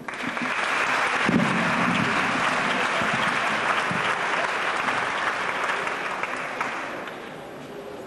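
Audience applauding, starting at once, holding steady, then thinning out about seven seconds in.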